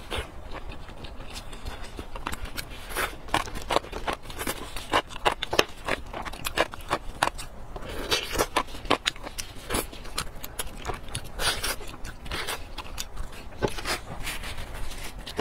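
Close-miked eating sounds: wet chewing, biting and lip smacking on soft, fatty braised meat, with many sharp clicks and smacks following each other quickly.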